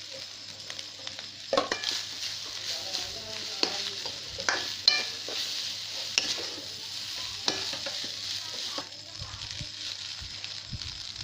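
Fried rice and vegetables sizzling in a hot pan while a spoon stirs them, with scrapes and knocks of the spoon against the pan every second or so.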